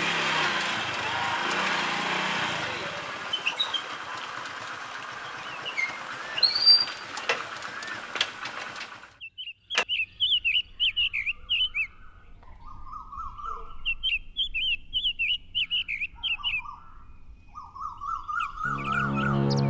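Birds chirping and singing in short, repeated warbling phrases through the second half. The first half is a steady rushing hiss with a few faint chirps in it. Music starts just at the end.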